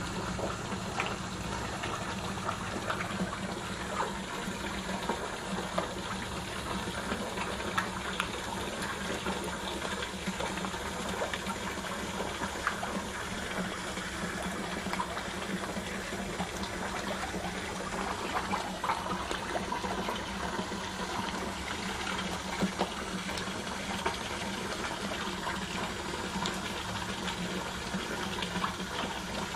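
Water running and splashing steadily into a fish pond, with many small ticks and a steady low hum underneath.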